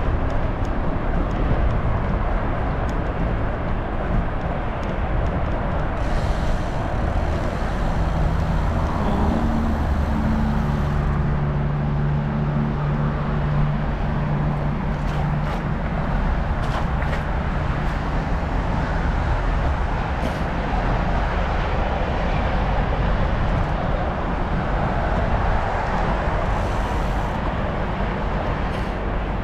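Steady rush of wind and road noise from riding a Trek Farley fat bike, with a motor vehicle's engine hum passing from about nine to sixteen seconds in.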